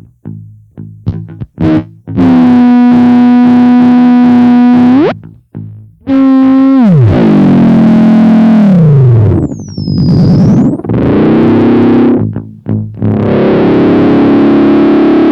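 Circuit-bent Waldman flanger pedal making distorted electronic noise: a run of short stuttering pulses, then a loud buzzing drone held for about three seconds that cuts off abruptly. It comes back and dives steeply down in pitch, with a thin high whistle swooping down and up midway, and settles into another sustained buzzing drone near the end.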